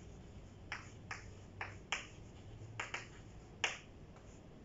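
Chalk tapping and striking a chalkboard while writing: about eight short, sharp clicks at an uneven pace, the loudest near the end.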